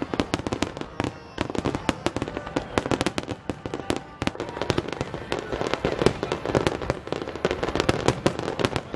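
Aerial fireworks going off in rapid succession: a dense string of bangs and crackling reports, many per second.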